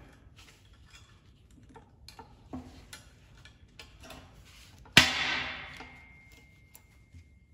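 Safety wire pliers twisting two strands of wire together: faint clicking of the spinning mechanism, then about five seconds in one sharp metallic snap that rings on and fades over a couple of seconds.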